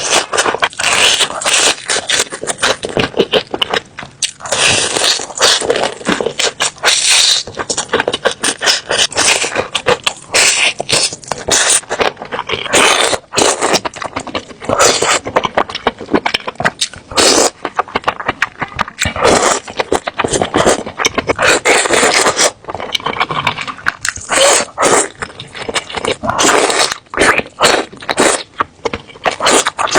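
Close-miked eating sounds from a mukbang meal: continuous chewing and wet mouth noises, dense rapid clicks and smacks broken by short noisy bursts.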